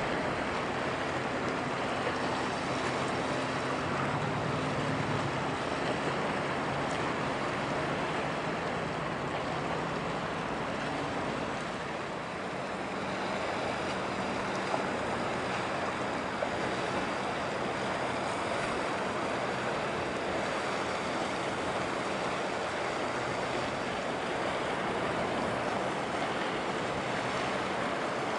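Steady wash of waves and wind over the water, with a low hum from a passing ship's engine underneath, clearest in the first dozen seconds.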